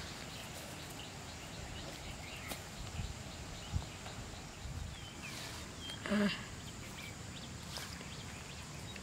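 Outdoor ambience: a steady background hiss with scattered small bird chirps, a falling chirp about five seconds in, and one short, louder pitched call about six seconds in.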